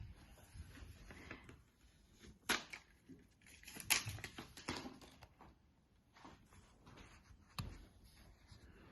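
Hands handling a smartphone and its SIM card tray: scattered small clicks and rustles, with sharper clicks about two and a half seconds in, around four seconds and near the end.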